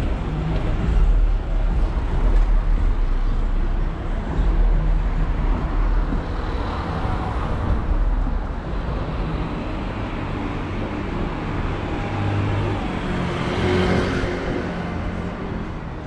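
Street traffic: a minibus driving off ahead, with engines humming and cars passing on the road. Another vehicle passes close about fourteen seconds in.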